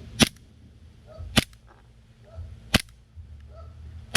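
Gas blowback airsoft pistol (an E&C Taran Tactical, Glock 17 style) firing four single shots about 1.3 seconds apart, each a sharp crack with the slide cycling. Every shot fires a BB: the misfire is cured after lubing the barrel.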